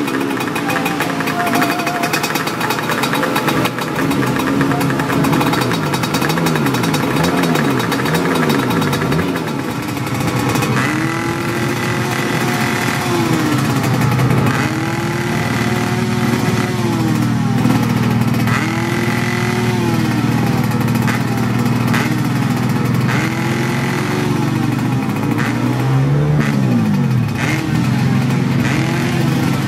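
Kawasaki Ninja motorcycle engine running, revved in repeated short throttle blips that rise and fall in pitch over a steady idle.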